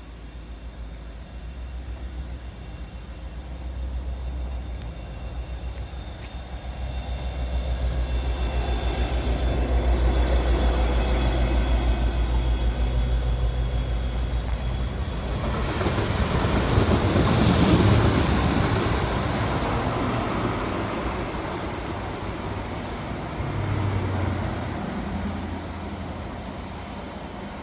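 A train passing by: a low rumble that builds for about fifteen seconds, peaks with a rush of noise a little past the middle, then slowly fades away.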